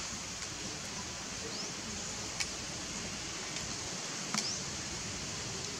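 Steady background hiss with a couple of sharp clicks and a few faint, brief rising high chirps.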